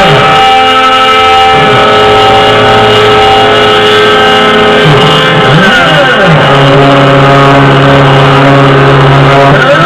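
Loud background music: held notes that change every few seconds, with repeated sweeping up-and-down tones over them.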